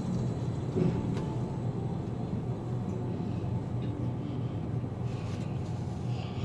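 Steady low mechanical hum and rumble inside a moving Ferris wheel gondola, with a faint click about a second in.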